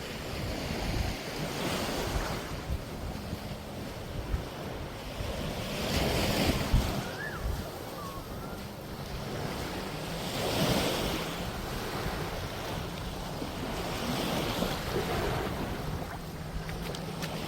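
Small sea waves washing up on a sandy beach, a swell of surf about every four seconds, with wind rumbling on the microphone.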